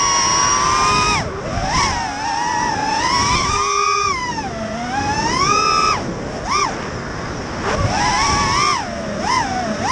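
Racing quadcopter's T-motor F60 III 2500kv brushless motors and propellers whining, recorded on the drone itself. The pitch swoops up and down constantly with the throttle, with a couple of quick sharp throttle punches in the second half.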